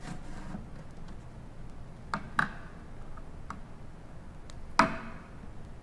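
A handful of light, separate clicks and taps over low room tone, the sharpest about five seconds in, from metal feeding tongs being handled at a plastic tub.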